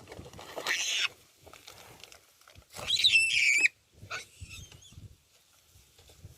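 A monkey shrieking: a short rough burst about half a second in, then a loud, high squeal lasting about a second with wavering pitch, followed by a few shorter, fainter squeaks.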